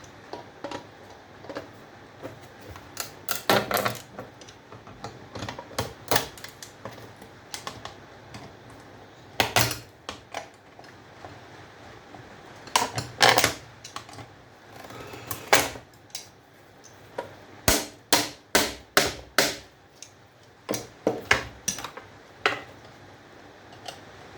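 Irregular clicks, knocks and clatter of small metal and plastic parts being handled while knobs are worked off an old electrical breaker, some in quick runs of several clicks.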